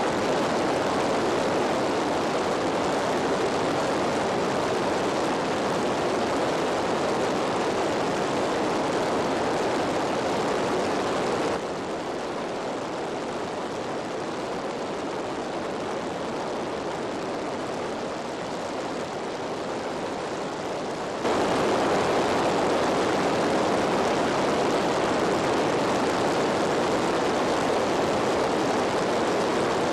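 Steady rushing noise of an aircraft in flight, heard from on board, with no distinct engine beat. It drops in level about twelve seconds in and comes back up about twenty-one seconds in.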